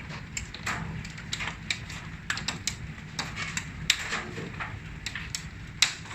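Marble-sized hail coming down: a steady rush of hail on the houses, with irregular sharp clicks of single hailstones striking hard surfaces, a few each second.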